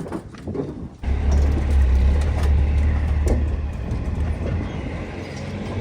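Scattered knocks, then about a second in a heavy vehicle's engine starts up loud and steady with a deep rumble.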